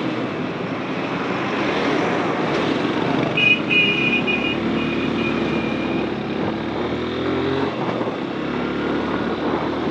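Motorcycle engine running while riding, with steady wind and road rush on the onboard microphone. A brief high-pitched tone sounds about three and a half seconds in.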